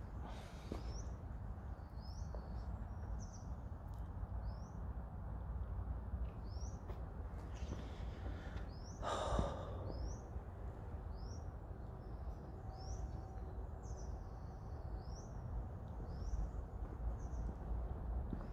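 A small bird chirping over and over, short high rising chirps about once a second, over a steady low rumble. One louder breathy exhale about nine seconds in.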